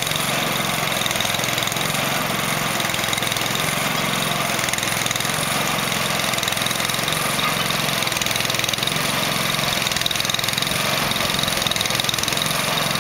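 Small engine of a trailer-mounted paddle mortar mixer running steadily as it mixes curb material.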